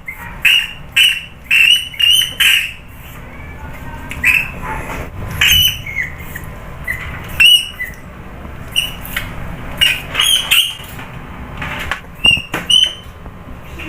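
A rat squeaking repeatedly: about twenty short, sharp, high-pitched squeaks in irregular runs, with brief pauses between.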